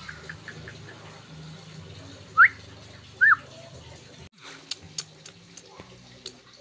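Dog whining twice, two short, loud, high whines about a second apart: the first rising, the second rising and then falling. Faint scattered clicks run underneath.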